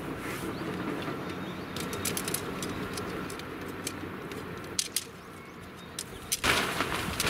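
Tent pole sections being pulled apart and folded, giving light sharp clicks a couple of times, then a loud rustle of tent fabric starting about six and a half seconds in.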